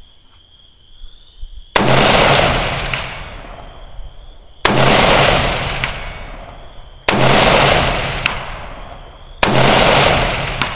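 Four AR-15 rifle shots, about two and a half seconds apart, each with a long rolling echo. About a second after each shot comes a faint tick: the bullet striking the lead target block 300 yards downrange.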